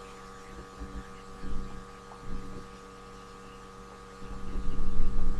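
Steady electrical hum from the recording chain, with a couple of soft low thumps and a louder low rumble about four seconds in.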